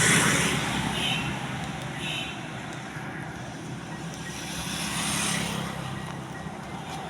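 A motor running steadily with a low hum, under a hissing noise.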